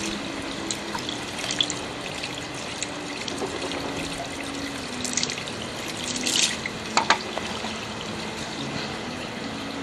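Rushing water, a steady even hiss. A few sharp clicks and knocks come about five to seven seconds in, the loudest near seven seconds.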